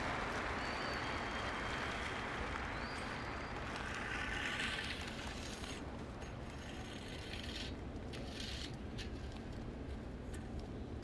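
Stadium crowd applauding, the applause dying away about five seconds in to a quieter crowd murmur.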